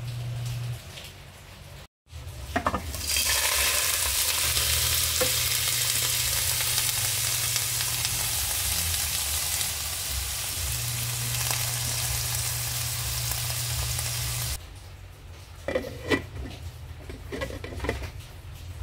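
Boiled beef chunks and garlic sizzling steadily as they fry in oil in a pan. Near the end the sizzle stops and a few light knocks and clinks follow, from the pot's glass lid being handled.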